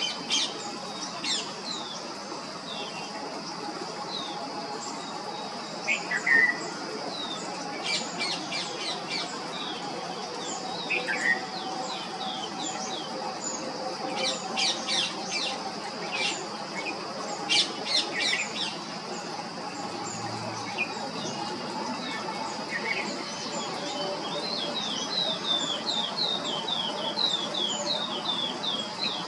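Red-whiskered bulbul calling: bouts of short, sharp notes every few seconds, with a quick run of chirps near the end, over a steady high-pitched hum.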